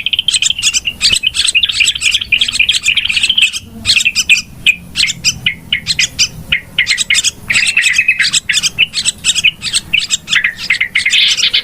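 Yellow-vented bulbuls (trucukan) chattering noisily: rapid, scratchy chirps in dense runs, briefly breaking off about four and seven and a half seconds in.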